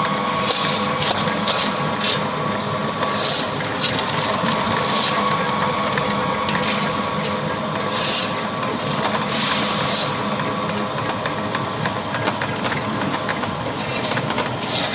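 Sawdust pellet mill running: a loud, steady mechanical din of gears with a constant hum and dense clicking and crackling, broken now and then by brief hissing surges.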